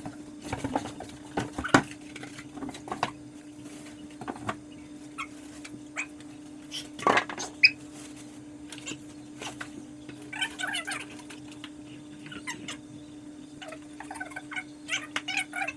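Packaging being handled while a speaker is unboxed: scattered knocks and rustles, with loud knocks about two seconds and seven seconds in, over a steady hum.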